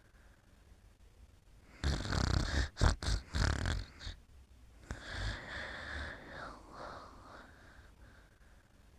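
Someone snoring in sleep: a loud snore about two seconds in, broken by short gaps, then a softer, longer one about five seconds in.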